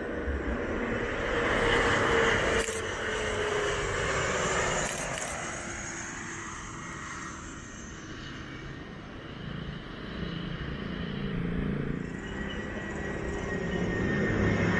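Jet airliner engines passing low on landing approach: a loud rush with a whine that falls in pitch over the first few seconds, then fades. From about two-thirds of the way through, another jet's engines grow steadily louder with a high, steady whine.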